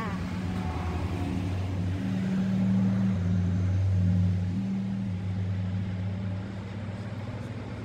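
A motor engine running at a low, steady pitch, growing louder about two seconds in and easing off after about four and a half seconds.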